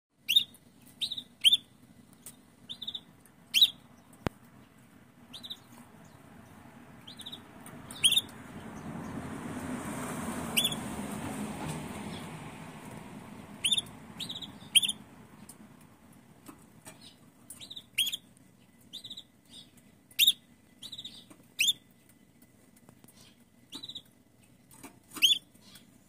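Red canaries calling: a hen's short, sharp chirps at irregular intervals, sometimes two or three in quick succession, answered by a male canary. A rushing noise swells and fades over several seconds about a third of the way in.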